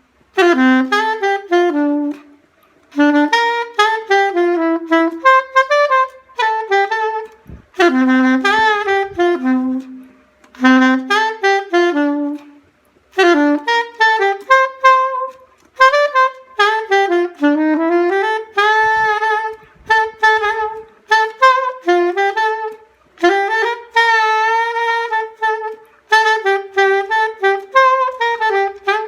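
Solo saxophone with no effects or accompaniment, playing a Christmas medley melody in phrases of a few seconds, each separated by a short pause for breath.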